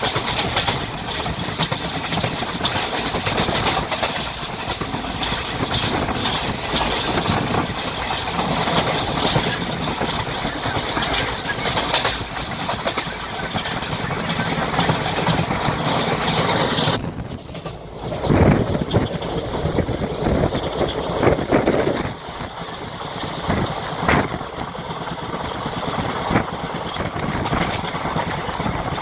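Passenger train running, heard from aboard a coach: steady rumble and rattle of wheels on the track. About two-thirds of the way through the sound turns abruptly duller, with several loud knocks.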